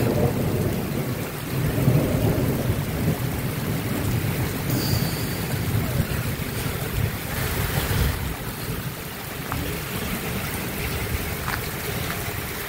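Steady rain with a long rolling rumble of thunder, loudest in the first seconds and fading after about eight seconds.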